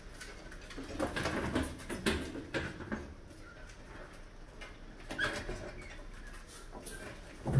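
Mice scrambling over a trap of beer cans on a wire-mesh rod above a glass tank: scrabbling, light clicks and knocks, busiest from about one to three seconds in and again near five seconds, with one louder thump at the very end.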